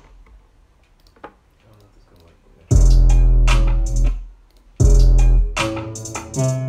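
Trap beat playing back through speakers: a deep 808 bass under bright hi-hat-like percussion and synth notes. It is stopped for the first two and a half seconds, leaving only a faint click, then it starts up, and about two seconds later it starts over from the top.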